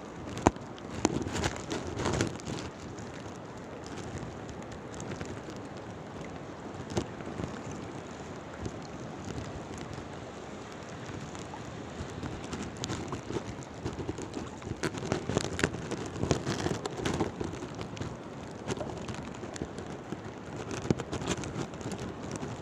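Shallow seawater splashing and sloshing around a wader on a reef at low tide, a steady wash dotted with irregular small splashes and knocks. It is busier near the start and again about two-thirds of the way through.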